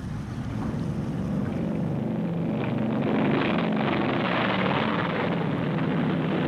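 Steady engine drone with a low hum, growing slightly louder over the first few seconds and then holding level.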